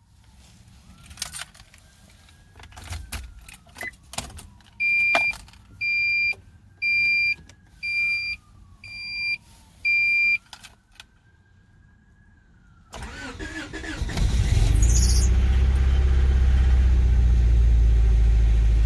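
A few clicks and knocks, then a car's warning chime beeping six times about once a second. The 1991 Honda Prelude Si's four-cylinder engine is then cranked and catches, and it settles into a steady idle, which the owner believes is misfiring and running rough.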